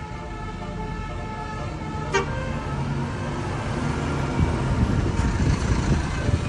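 Basuri musical bus horn playing a tune in stepped notes, which ends with a sharp click about two seconds in. After that comes the low rumble of the bus's engine and road noise, growing louder.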